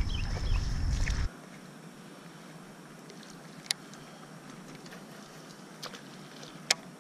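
Low rumble and handling noise on a body-worn camera microphone while walking, with a few birds chirping and a steady high buzz; about a second in it cuts off abruptly to quiet open-air ambience. Three sharp clicks follow, the last and loudest about a second before the end.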